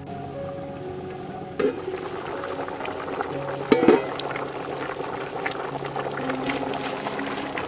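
Water boiling in a large metal cooking pot. Its metal lid clanks twice, about one and a half and four seconds in, the second clank the louder.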